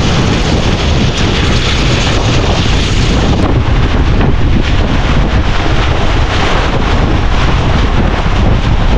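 Strong wind blowing hard across the microphone: a loud, continuous rumble with no let-up.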